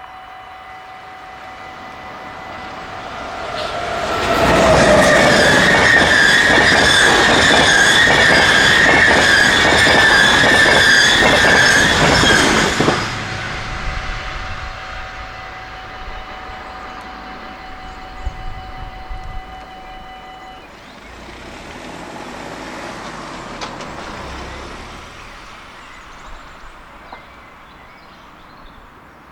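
Dutch level-crossing warning bells ringing steadily while a train passes loudly for about nine seconds, starting about four seconds in. The bells stop about twenty seconds in.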